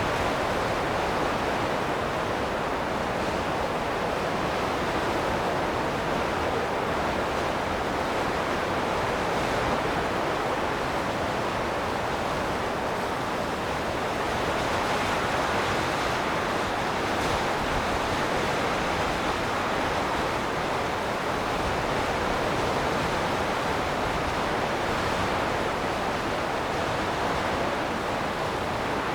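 Wind blowing in a steady rush of noise that swells and eases gently, without sharp gusts.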